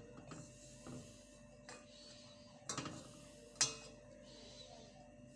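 A few light clicks and knocks, spread out, the sharpest about three and a half seconds in: a utensil knocking against a cooking pot while bay leaves are lifted out of a soup.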